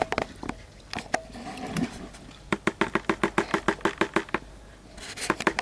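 Handling noise from a baiting spoon in a bucket of seed bait: scattered clicks and scrapes, then a quick regular run of short ticks, about eight a second, and a rustle near the end.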